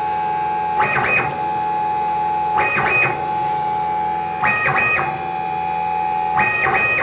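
Stepper-driven CNC Z axis running a G83 peck-drilling cycle: a steady motor whine, broken about every two seconds by a pair of quick rising-and-falling pitch sweeps as the axis rapids the drill out and back in.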